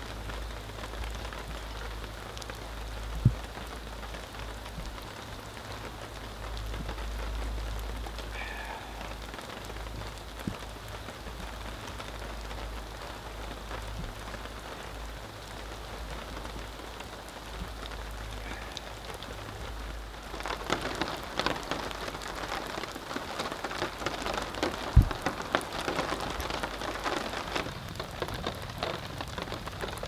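Steady rain pattering, growing denser and heavier about two-thirds of the way through. Two sharp knocks stand out, one about three seconds in and one near the end.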